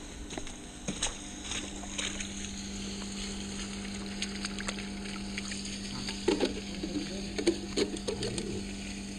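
Water gurgling and crackling as it drains down a roof drain being unblocked, over a steady low hum. Bubbly popping gurgles join in about six seconds in.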